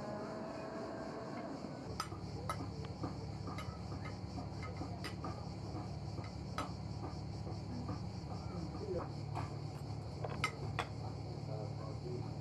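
Light clinks of cutlery and dishes as people eat, about a dozen scattered clicks, over a steady high insect chirring and a low hum that sets in about two seconds in.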